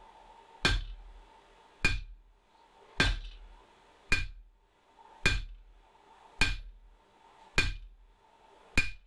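Hammer blows on a blacksmith's anvil, eight evenly spaced strikes about one a second, each with a short metallic ring.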